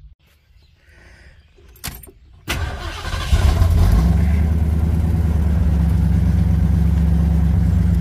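1973 Ford Torino engine starting, heard from inside the cabin: after a quiet moment with a faint click, the starter cranks briefly about two and a half seconds in, the engine catches and settles into a steady idle.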